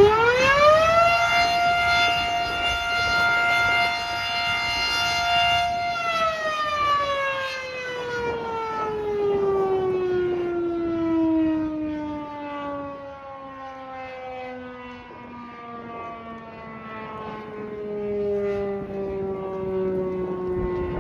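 Federal Signal Model 7 electromechanical siren sounding a test: it reaches full pitch about a second in and holds one steady high tone for about five seconds, then winds down in a long, slowly falling wail that is still dying away at the end.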